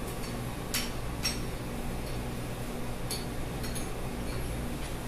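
A few light metallic clicks and clinks from a tool working at the base of a vertical shawarma skewer, over a steady low machine hum.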